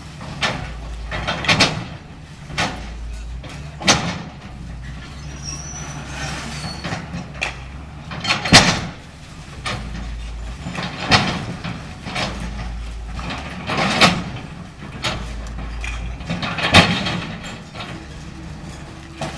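CAT 325L hydraulic excavator demolishing a building: its diesel engine runs steadily under a series of loud crashes and bangs of breaking structure and falling debris, every one to three seconds, the loudest about eight and a half seconds in.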